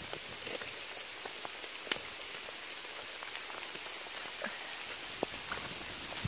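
Steady rain falling, an even hiss with single close drops ticking irregularly about once a second.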